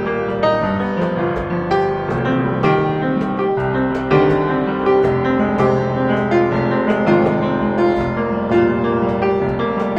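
Background music led by piano, a steady run of notes.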